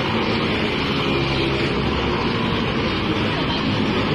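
Steady city street traffic noise: engines of passing scooters and cars.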